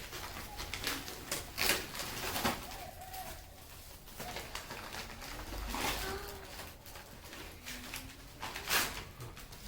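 Gift packaging being handled and torn open: a few sharp crinkles and rips of paper or plastic wrapping, with faint low tones in the gaps.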